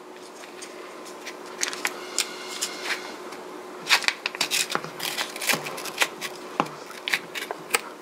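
A pint tub of Halo Top ice cream being opened: the lid pulled off and the foil seal peeled back, with a run of sharp crinkles and clicks that gets busier about halfway through.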